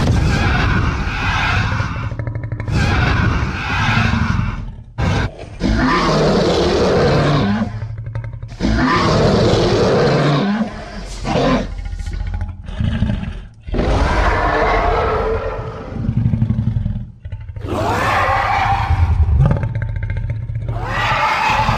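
A string of monster roars and growls, one after another, each lasting a few seconds with brief breaks between them.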